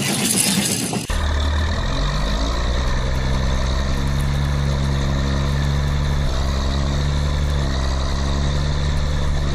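A dubbed tractor engine sound effect running steadily at an even low note. It cuts in suddenly about a second in, after a brief hiss.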